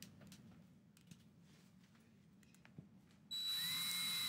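Cordless drill-driver starting up about three-quarters of the way in and running at a steady speed as it drives a screw into a thermostat wall plate. Before that there are only a couple of faint clicks.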